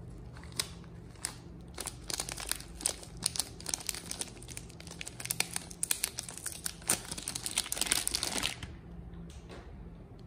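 Printed packaging of a Lifebuoy soap bar crinkling and tearing as it is opened by hand. A run of sharp crackles grows thickest just before it stops near the end.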